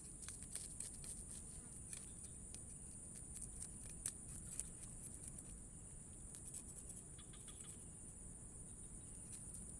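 Faint, steady high-pitched drone of insects, with scattered small clicks and ticks throughout.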